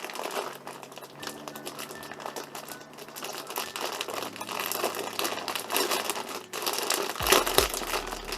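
Packaging crinkling and rustling as a plush bag is unwrapped by hand, an irregular run of crackles.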